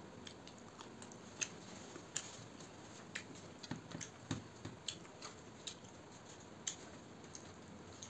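Eating rice by hand from a steel plate: irregular faint clicks and smacks of chewing and of fingers mixing rice against the plate, with a few soft thuds near the middle.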